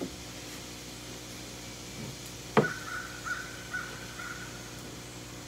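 A knife cutting through a hoagie roll on a plastic cutting board, quietly, with one sharp tap about two and a half seconds in. A faint steady high tone follows for about two seconds.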